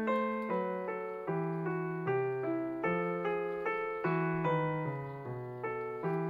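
Background piano music: a steady run of struck notes over a regular low bass line.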